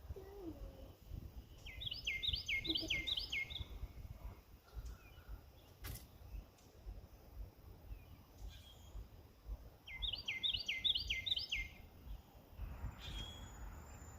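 A small songbird singing two short phrases, each a quick run of about six repeated down-slurred notes, the second about eight seconds after the first, over a low rumble. A single sharp click falls between the two phrases.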